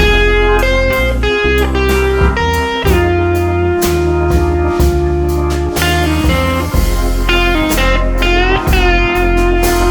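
Background music: a bluesy guitar tune with held, bending notes over bass and drums.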